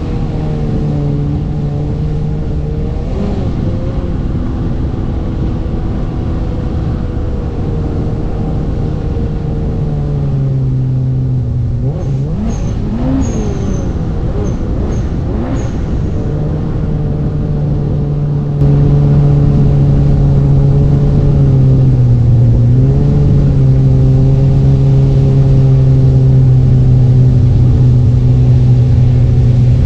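Yamaha FX SVHO WaveRunner's freshly rebuilt 1.8-litre supercharged four-cylinder engine running at a steady, easy speed while being broken in. Its pitch dips and comes back up a couple of times, and it gets louder about two-thirds of the way through.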